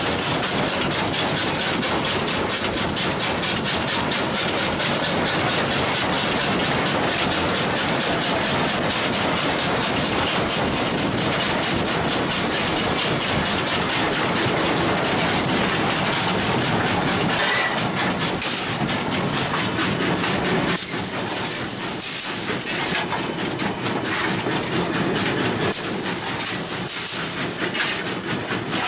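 Baldwin steam locomotive running, a steady hiss of steam over a fast, even clatter. Two stronger bursts of high-pitched hiss come about two-thirds of the way through and again near the end.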